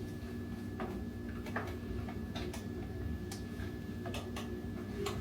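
Irregular light clicks and knocks of small household objects being handled, over a steady low hum.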